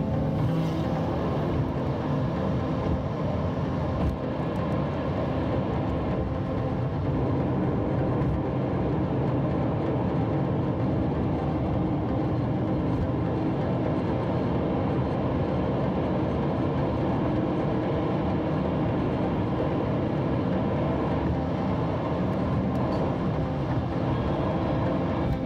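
Steady drone of a car driving, engine and tyre noise heard from inside the cabin, holding an even level.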